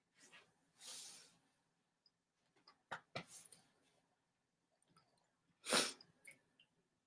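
A woman's quiet breaths, with a short sharp inhale or sniff near six seconds and a few faint clicks around three seconds.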